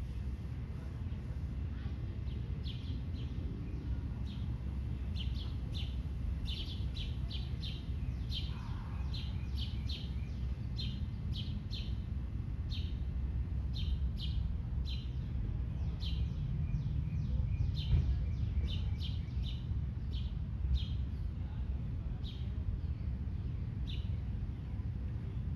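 Short high-pitched chirps repeating a few times a second at uneven spacing, over a steady low rumble.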